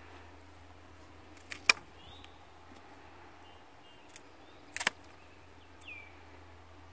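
Hand pruning shears snipping through woody elderberry stems to take cuttings: two sharp snips about three seconds apart, each with a lighter click just before it. Faint bird chirps run underneath.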